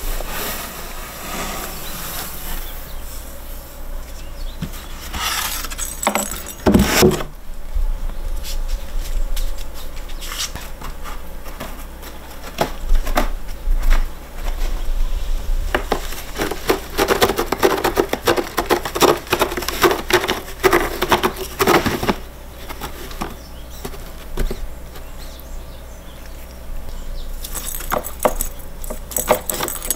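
Cats clawing at a scratcher toy and batting the play ball trapped inside it: irregular scraping and clicking strokes, busiest a little past the middle.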